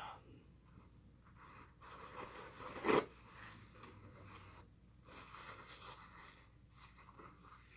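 Close-miked eating sounds: chewing and scraping, irregular, with one sharper, louder sound about three seconds in.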